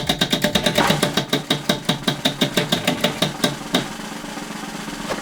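Spinning prize wheel, its pointer clicking against the pegs in a rapid run of ticks that slows to about three a second as the wheel loses speed, then stops nearly four seconds in.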